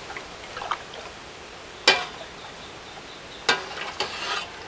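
Long metal ladle stirring and scooping broth in a large aluminium stockpot, knocking against the pot twice about a second and a half apart with a short metallic ring, plus a few lighter clinks over a steady hiss.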